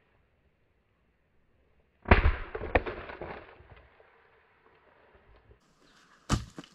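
Fiskars splitting axe striking a log about two seconds in: a sharp crack as the round splits, followed by about a second of split pieces clattering down. A single short wooden knock near the end.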